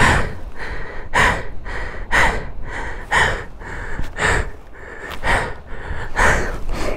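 A man panting heavily, about one loud breath a second, out of breath from exertion.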